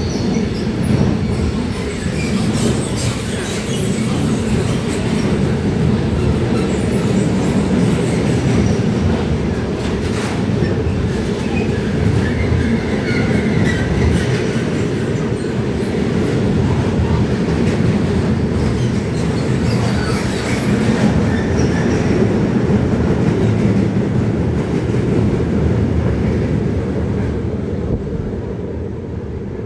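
Freight train of sliding-wall wagons rolling past at speed: a steady loud rumble of wheels on rails with clattering over rail joints, fading near the end as the last wagons go by.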